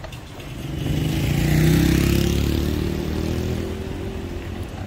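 A motor vehicle's engine and tyre noise swelling to a peak about two seconds in, then fading away.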